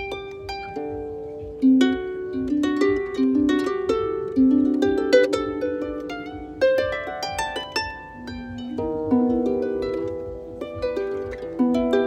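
Small wooden harp plucked by hand: a flowing instrumental passage of single notes and chords that ring on and overlap.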